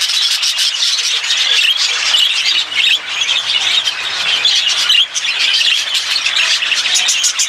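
Many budgerigars chattering and squawking together, a dense unbroken high-pitched chatter.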